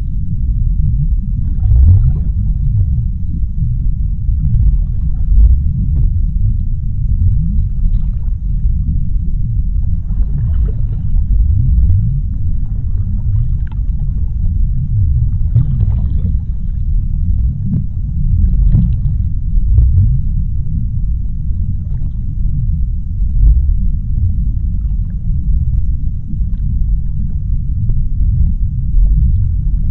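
Underwater deep-sea ambience: a steady low rumble, with faint brief rushes of higher sound every second or two.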